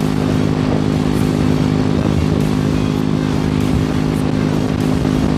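Motorcycle engine running at a steady, unchanging pitch while riding along, with wind noise on the microphone.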